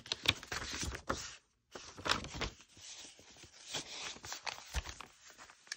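Aged paper rustling and crinkling as hands unfold an old receipt and lift paper flaps and tags in a handmade journal: irregular rustles with a short pause about a second and a half in.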